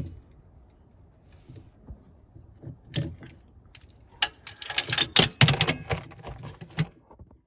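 Metal hand tools clicking and clinking against the metal parts of a skid steer's control lever as a fastener is worked loose with a wrench. One sharp click at the start, a few about three seconds in, then a quick irregular run of loud clicks.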